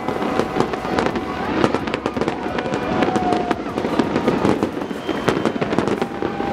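Fireworks going off: a dense, continuous crackle of many sharp pops.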